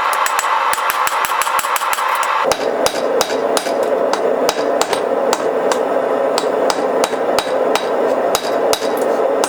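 A hand hammer beating hot 1045 carbon steel on an anvil in a fast, even run of sharp blows, roughing a round bar into a rounded-over square. Under the blows runs a steady rushing noise, which drops lower in pitch about two and a half seconds in.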